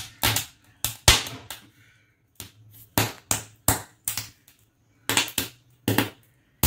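Sweet corn kernels popping and crackling as the cob roasts directly over a gas burner flame: a run of sharp, irregular cracks, with a couple of short pauses.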